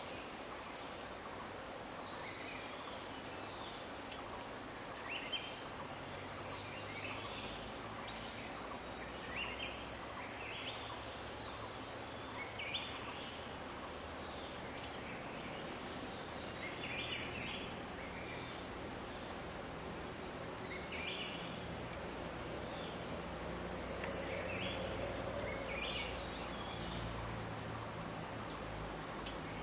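A steady high-pitched drone of a forest insect chorus, with short chirps repeating every second or two.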